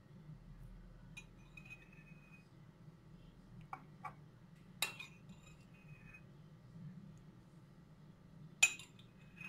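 A metal spoon clinking against a glass while scooping tomato-paste water: a few light clinks, a sharper one about five seconds in and the loudest near the end, several leaving a brief high ring.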